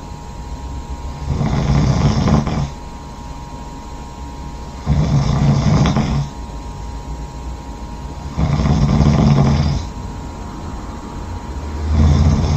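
A sleeping person snoring loudly, with four long snores spaced about three and a half seconds apart, the last starting near the end.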